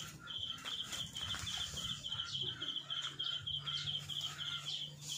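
Birds chirping: one repeats a short high chirp about four times a second without a break, and other calls come in over it, with faint crackles underneath.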